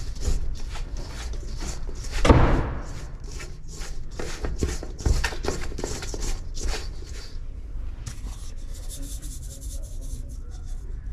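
Hands handling kitchen containers and utensils while putting together dough ingredients: quick knocks, taps and rubbing, with a heavier knock about two seconds in and another about five seconds in, quieter towards the end.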